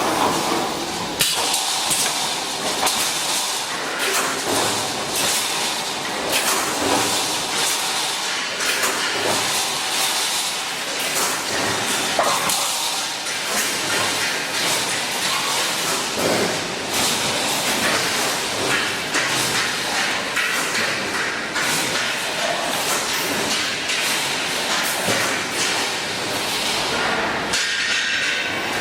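Full-automatic wire mesh welding machine running, a busy clatter of repeated clanks and knocks over a steady noise.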